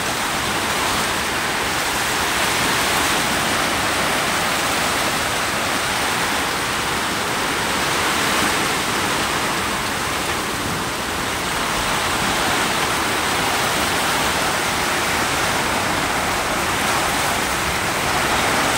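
Heavy rain falling on corrugated tin roofs in a strong windstorm: a steady, dense hiss.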